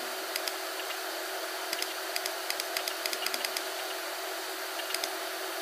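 Faint, irregular computer mouse clicks over a steady background hiss and a low hum.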